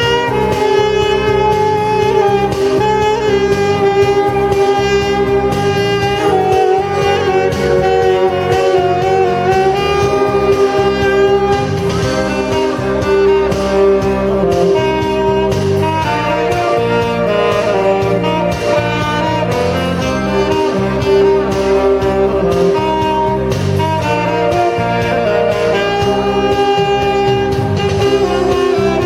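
Saxophone playing a melody of long held notes over a backing accompaniment of chords.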